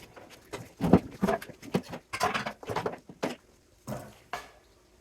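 Irregular knocks and clinks of metal parts being worked apart by hand while the copper is stripped from a cooling unit. The loudest knock comes about a second in, and it goes quiet for the last second or so.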